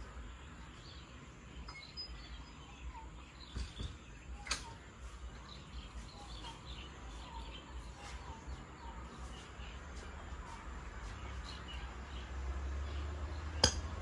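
Dogs eating from food bowls: faint scattered clicks of feeding, with a sharp knock a little before the end, over birds chirping faintly in the background.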